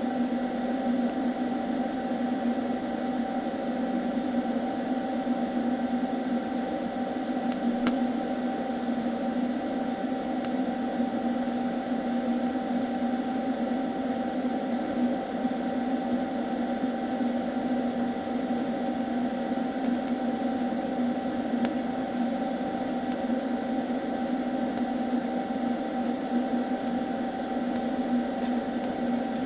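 TIG welding arc running steadily on thin 18-gauge mild steel: an even hiss over a constant low hum, with a few faint ticks.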